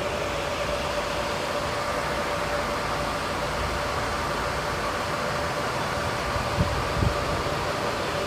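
Steady machine whir with a constant hum tone, as of bitcoin mining equipment and its cooling running. Two brief low thumps come near the end.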